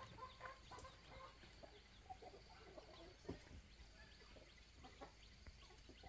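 Chickens clucking faintly, a scattering of short calls.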